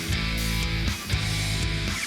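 Background music: rock with distorted electric guitar and a steady beat.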